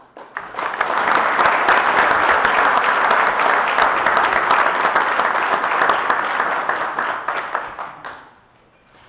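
Audience applauding: many hands clapping together, building up within the first second, holding steady, then dying away about eight seconds in.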